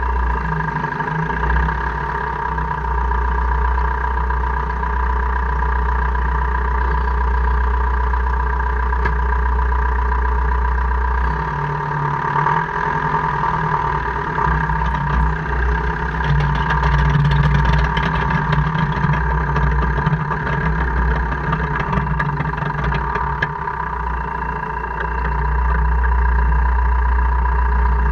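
2002 Jeep Cherokee KJ running with its drivetrain making a gear-grinding, clicking noise, a fault the owner cannot place and which occurs only in 4H or 4L. There is a steady high tone over the engine, and the grinding grows rougher in the middle of the stretch.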